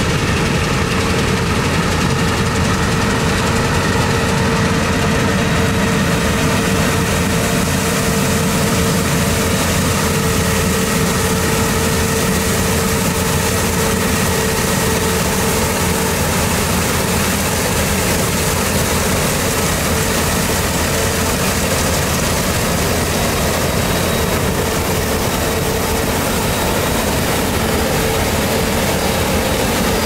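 Combine harvester running steadily at work, a continuous engine drone and machinery noise with a steady whine that fades about halfway through.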